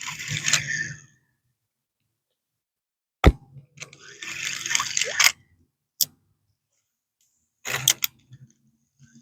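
Handling of fishing gear in a kayak: a few sharp clicks, one about three seconds in, one about six seconds in and a quick cluster near the end, with short rushes of noise between them.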